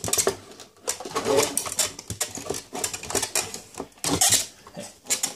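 Metal chassis of a valve radio being worked out of its wooden cabinet: irregular scraping, knocking and rattling of metal against wood.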